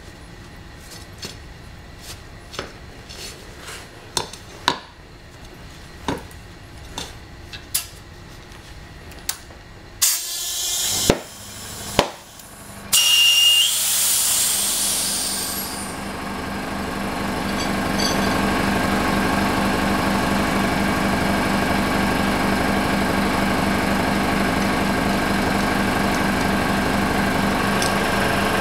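Metal tools clink and knock against the scooter wheel during tubeless tyre mounting. About ten seconds in come several loud hissing blasts of compressed air as the tyre is inflated. Then a small motor, an air compressor, starts and runs steadily with an even pulsing beat.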